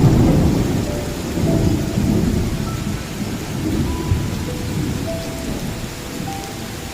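Low rolling rumbles swelling and fading over a steady hiss, the loudest right at the start, with a few faint short musical notes.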